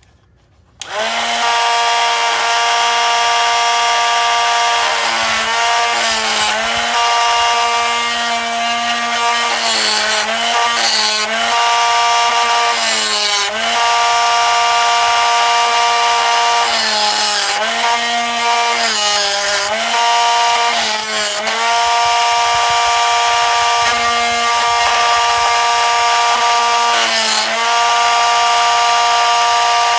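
An electric grinder motor starts about a second in and runs with a steady hum. Its pitch dips again and again as a drill bit is pressed freehand against the wheel, with gritty grinding scrapes, and it is switched off at the end, its pitch starting to fall.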